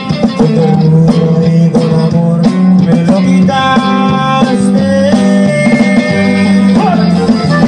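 Live norteño band playing a song: button accordion melody over bass, guitar and drums.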